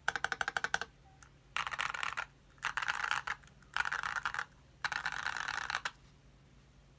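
ID80 v2 mechanical keyboard with lubed Gazzew Boba U4T tactile switches, tape mod and PBT keycaps being typed on. It opens with a quick run of separate keystrokes. Then come four dense bursts of rapid key presses, each under a second long.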